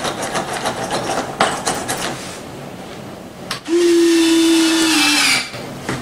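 Electric servoless retractable landing gear motor whining steadily for about a second and a half as the gear cycles, starting a little past halfway and dropping slightly in pitch just before it stops. Before it come light clicks and rubbing as the gear and foam fuselage are handled.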